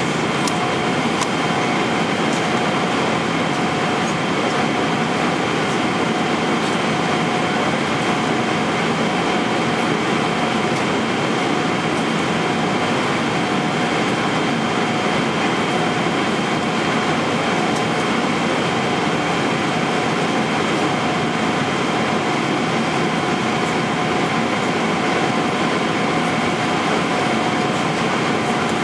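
Steady cabin noise of a Boeing 777-300ER airliner in flight: the even rush of air past the fuselage with engine drone, and a faint steady hum running through it.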